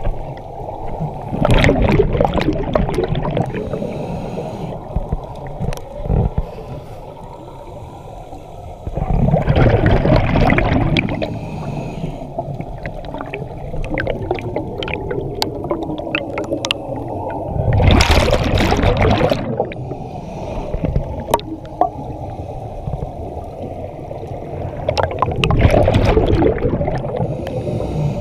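Underwater breathing of a scuba diver through a regulator: four loud bubbling rushes of exhaled air, each about two seconds long and about eight seconds apart, over a steady low rumble.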